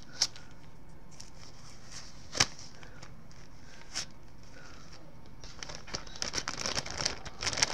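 Clear plastic bag crinkling and rustling as used gloves and paper towels are stuffed into it. There are a few sharp snaps in the first half, the loudest about two and a half seconds in, and the crinkling turns dense and continuous for the last two seconds.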